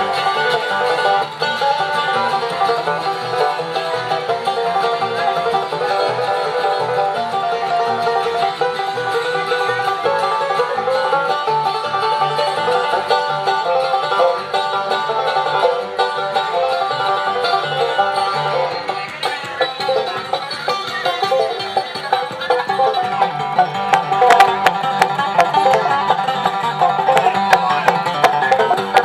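Bluegrass string band playing, with the banjo out front. The sound thins briefly about two-thirds of the way through, then the band comes back in full.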